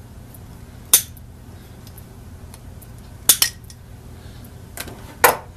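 Diagonal cutters snipping through old motor lead wires: sharp metallic clicks, one about a second in, a quick pair past three seconds, and two more near the end, the last the loudest.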